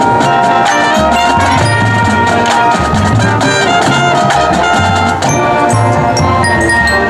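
Marching band playing: brass with drums and percussion, over a steady, regularly pulsing bass line.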